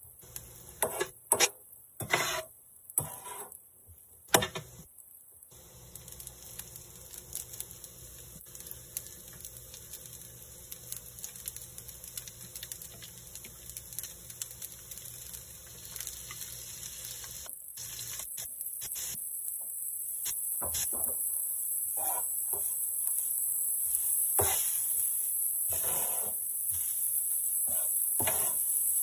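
Metal spatula clacking and scraping on an electric griddle while turning fried rice, loudest in the first few seconds. Under it the rice sizzles, growing louder and hissier in the second half.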